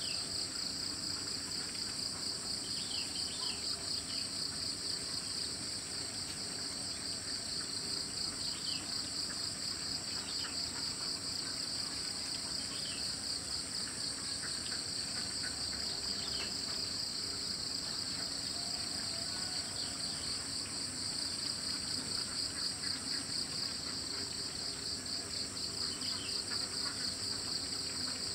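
Steady chorus of insects trilling in a fast, even pulse, high-pitched and continuous, with a few faint short chirps now and then.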